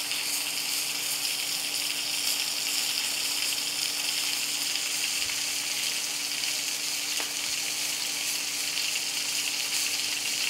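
Venison steaks frying in oil in a pan, a steady, even sizzle, with a faint steady hum underneath.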